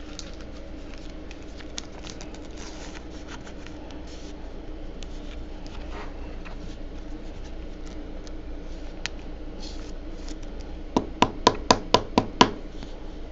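Faint rustling as a trading card is handled and slipped into a clear rigid plastic holder, with a steady low hum. Near the end comes a quick run of about seven sharp taps, the loudest sounds here.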